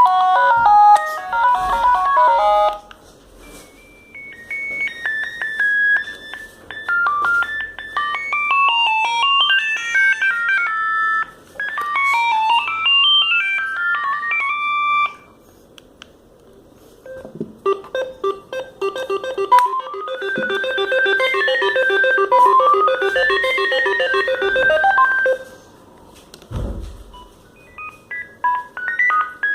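Sagem MW 3022 mobile phone playing its built-in ringtones one after another: simple electronic beeping melodies with short pauses between tunes. One tune ends about three seconds in, two more play through, and a fourth begins near the end.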